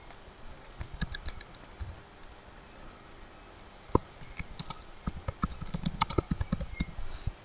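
Typing on a computer keyboard: a short run of keystrokes about half a second in, a single louder click about four seconds in, then a quicker, denser run of keystrokes over the last three seconds.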